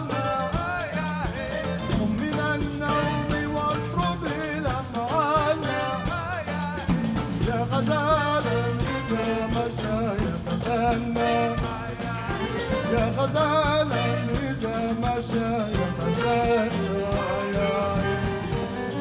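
Large Arabic-jazz ensemble playing an instrumental passage: trumpet and reeds carry a winding, ornamented melody over drum kit and bass.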